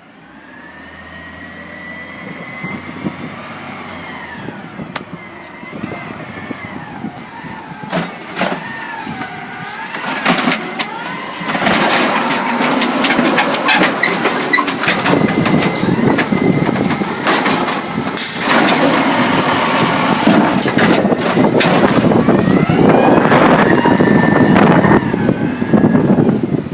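An Amrep garbage truck drawing closer and getting louder, its engine running under a wavering high-pitched squeak that slides up and down in pitch. The second half is loud and busy with clattering and rattling.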